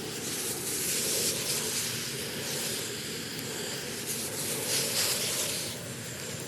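Water spraying from a garden hose onto the vegetable beds: a steady hiss that swells and eases several times as the spray moves.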